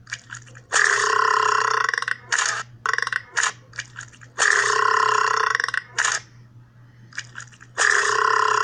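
Three long, loud burps, each about a second and a half and nearly identical in sound, with short sharp clicks in the gaps between them.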